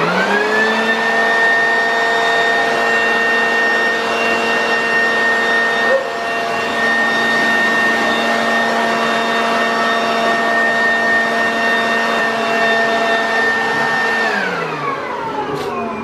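Leaf blower switched on, rising quickly to a steady high motor whine with a rush of air as it blasts dust out of an open desktop computer. Near the end it is switched off and winds down with falling pitch.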